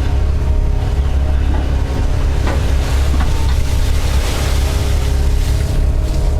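Doosan DX140 excavator's diesel engine running steadily under working load, with a few faint knocks a little past two and a half seconds and again around three seconds in.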